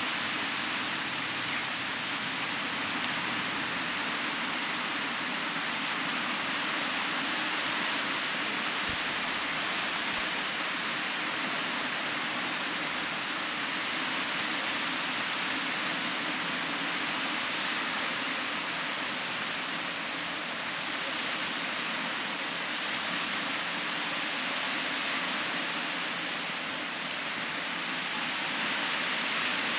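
Steady wash of small waves breaking and running up a shallow sandy beach, swelling and easing slightly every few seconds.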